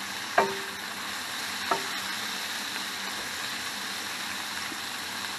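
Water spinach stems sizzling in a frying pan as they are stirred with a wooden spoon, a steady frying hiss. Two knocks, about a second apart, come early on, the first with a short ring, from the spoon striking the pan.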